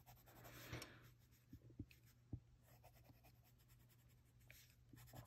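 Faint scratching of a colored pencil shading on paper, with a few soft ticks.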